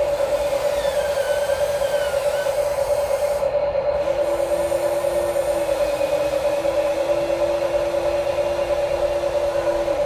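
Electric gear motors of a Huina 1593 RC excavator whining steadily as it digs into gravel and lifts its arm. A second, lower motor whine joins about four seconds in.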